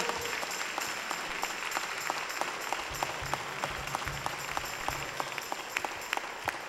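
Church congregation applauding: many hands clapping at once, a steady patter of claps. A low steady tone joins for a second or two about three seconds in.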